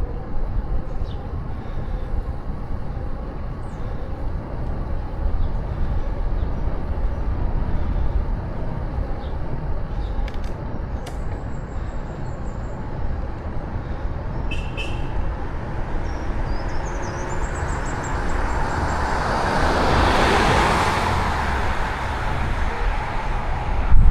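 Steady low wind rumble on the microphone of a moving bicycle, with a vehicle passing that swells and fades about 18 to 22 seconds in. A few high bird chirps come through in the middle.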